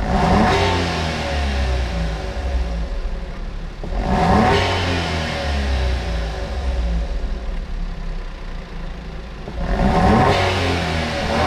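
Suzuki Alto Turbo RS (HA36S) 658 cc turbocharged three-cylinder engine revved three times while stationary, each blip rising in pitch and falling back to a steady idle. It is heard through a BLITZ NUR-SPEC VS stainless aftermarket exhaust with twin tips, on a car also fitted with a core-type air cleaner.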